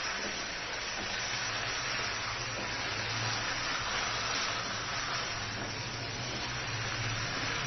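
Chicken liver, gizzard and stomach pieces with potatoes frying in oil in a nonstick pan while being stirred with a silicone spatula, a steady sizzling hiss of the slow dry sauté (kosha) stage. A low steady hum runs underneath.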